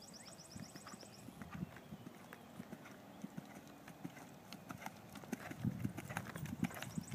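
A horse's hooves trotting on grass turf: soft, uneven thuds that grow louder about five seconds in as the horse comes close.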